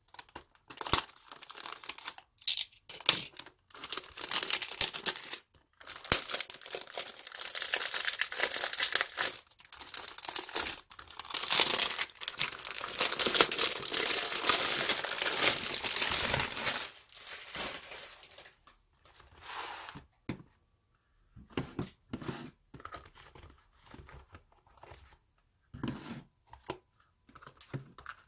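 Clear plastic shrink-wrap being torn and crinkled as it is pulled off a cardboard box, a dense crackling that lasts about the first seventeen seconds. After that come scattered separate knocks and clicks as plastic tubs are lifted out and set down on a wooden table.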